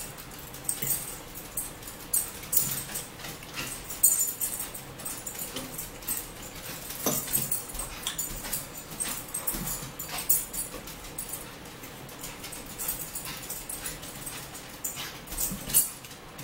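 Eating sounds: chewing and lip-smacking with irregular sharp clicks of metal forks against plates.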